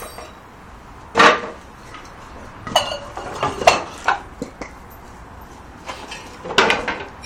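Wooden blocks knocking and clattering as they are pulled out and dropped, with a few short ringing clinks. About half a dozen separate knocks, the loudest about a second in and a cluster a few seconds later.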